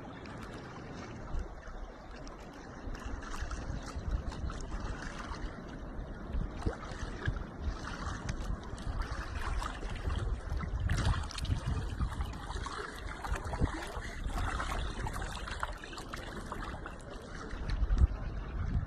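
Water running and trickling with irregular small splashes, mixed with uneven low rumbles.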